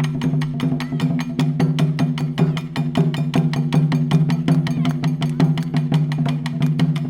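Music: a fast, even clicking beat, about six clicks a second, over a steady low drone.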